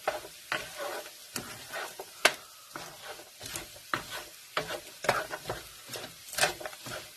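Migas (egg, fried tortilla chips and bacon) being stirred in a frying pan, with irregular scrapes and taps of the utensil against the pan over a steady sizzle.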